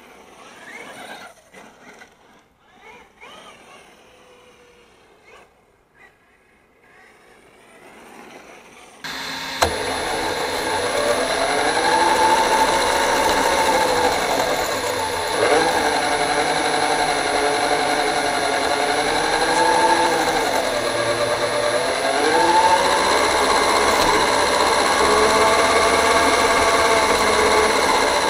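Brushless 4350kv electric motor and drivetrain of an FTX Carnage 2.0 RC truck whining, its pitch rising and falling with the throttle. It is faint for about the first nine seconds, then comes in suddenly loud and close from a camera mounted on the truck.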